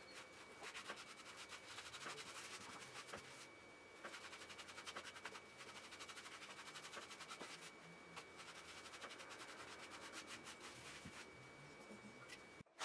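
Faint, rapid rubbing and scraping through a wet, shampooed cocker spaniel's coat as it is scrubbed, in three stretches of a few seconds each with short pauses between them.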